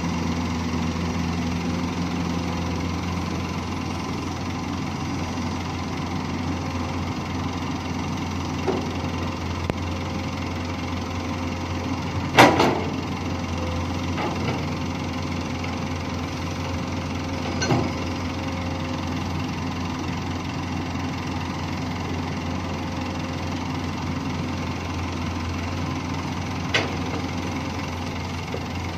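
Komatsu PC200 long-reach excavator's diesel engine running steadily as the machine swings and loads a dump truck, with a few sharp knocks, the loudest about twelve seconds in and two smaller ones later.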